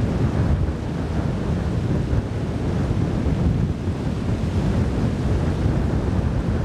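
Wind buffeting the microphone: a loud, low rushing noise that gusts up and down.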